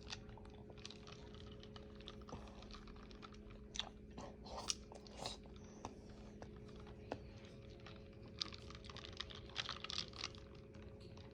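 Faint scattered clicks and light crunching, thickest in the middle and latter part, over a steady low hum.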